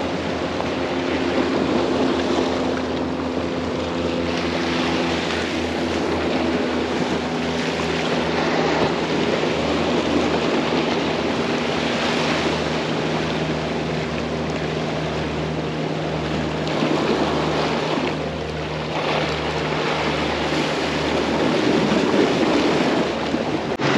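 Sea waves washing against the shore, with the steady hum of a boat engine running under them that fades near the end.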